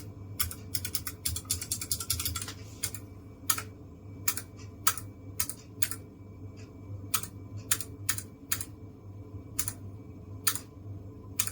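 Keychron K1SE low-profile mechanical keyboard with clicky optical blue switches being typed on. A fast run of key clicks for the first two seconds or so, then single key presses about every half second to a second.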